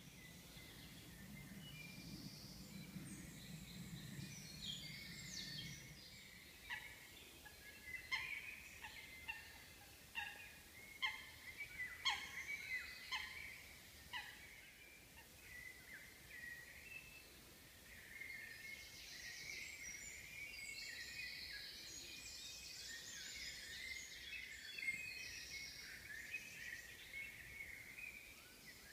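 Woodland birds singing, with many short chirps and trills, and a run of sharp calls about once a second in the middle stretch. A low hum lies under the first few seconds.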